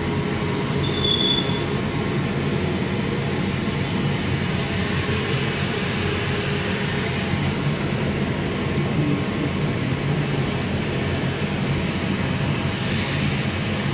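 High-frequency PVC tarpaulin welding machine running: a steady electrical hum under a broad mechanical drone, with a short high tone about a second in.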